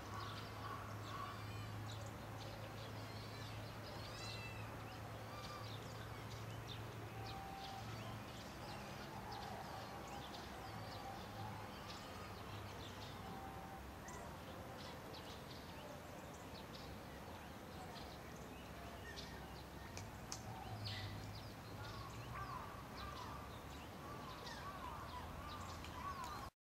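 Faint high-pitched whining and squeaking of three-day-old gray wolf pups, coming and going in short wavering cries that grow busier near the end, over a steady low hum.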